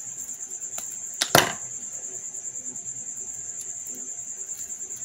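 Steady high trilling of crickets, with one sharp click about a second in from the wire being handled.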